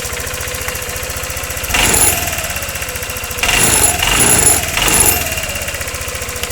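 Honda SH150i scooter's single-cylinder four-stroke engine idling, revved briefly four times with the throttle around the middle. It runs without knocking now that the main fault behind the engine knock has been repaired.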